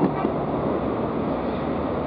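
Steady rushing noise of road traffic.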